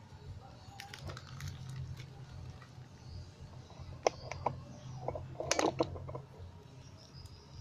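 Plastic sleeve and cardboard packing being handled: scattered clicks and crinkles, with a sharp tap about four seconds in and a louder cluster of rustles about a second later, over a low steady hum.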